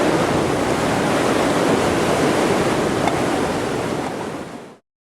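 Steady, loud rushing of river whitewater at a big standing wave on high water, fading out shortly before the end.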